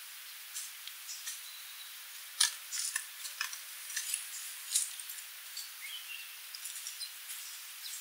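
Sooty babbler giving short, sharp clicking notes at irregular intervals, loudest about two and a half and five seconds in, with a couple of brief high notes near six seconds.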